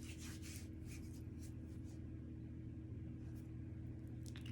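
Quiet room tone: a low steady hum, with a few faint soft rustles.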